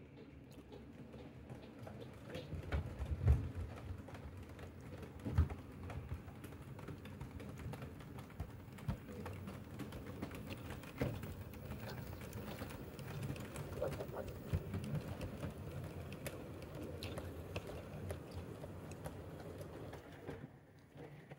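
O gauge model tank locomotive hauling a rake of mineral wagons along the track, with a low rumble and many small clicks and knocks from the wheels on rail joints and pointwork.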